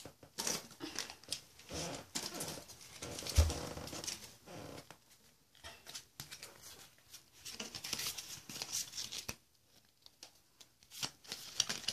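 Foil wrapper of a Pokémon card booster pack crinkling and tearing as it is opened by hand, in short, irregular rustles, with a single low thump about three and a half seconds in.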